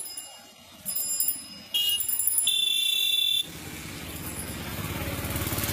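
A loud, high-pitched alarm-like tone sounds for about a second and a half and cuts off abruptly, followed by a steady rushing noise.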